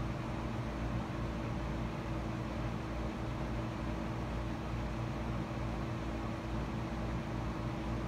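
Steady hum and hiss, unchanging throughout, with no distinct events.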